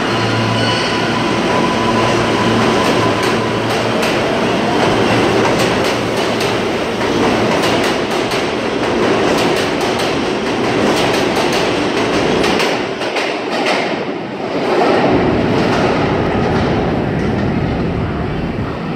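R143 subway train pulling out of the station and running past at speed: a steady rumble of wheels on rail, with rapid clicking over the rail joints that dies away near the end as the last cars leave.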